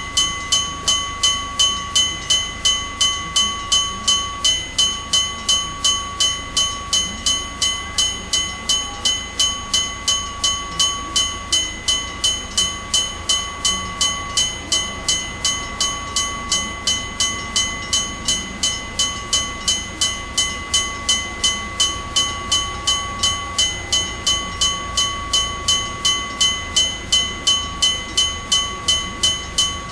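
Electric bell (denrei) of a Japanese railway level crossing on the Hokuriku Railroad Ishikawa Line, ringing rapidly and evenly at a little under three strokes a second. It is the crossing's warning that a train is approaching.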